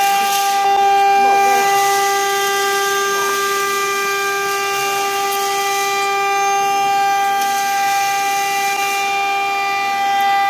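CNC stone engraving machine's spindle motor running at a steady high speed, a constant whine held at one pitch with a string of overtones above it.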